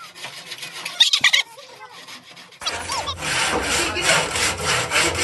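Handsaw cutting a wooden board with repeated back-and-forth rasping strokes, which start about halfway in and then keep an even rhythm. A short loud clatter comes about a second in.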